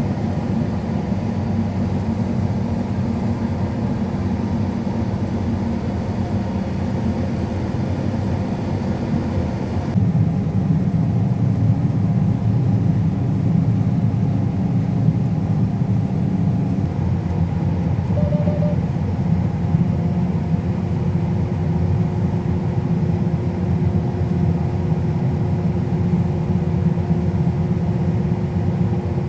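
Large harvest-machinery engine running steadily at constant speed, a low hum with a steady drone. The sound changes abruptly about ten seconds in and again about seventeen seconds in.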